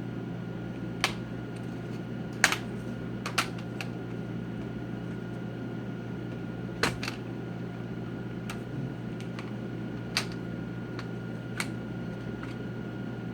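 Sharp plastic clicks and snaps, a few seconds apart, as a plastic opening tool pries the snap-in plastic bezel off a Dell Inspiron laptop's screen and its clips let go. A steady low hum runs underneath.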